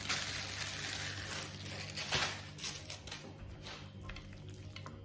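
Plastic oven bag crinkling and rustling as it is pulled off the roasted food, for about three seconds, then dying down to a few light clicks.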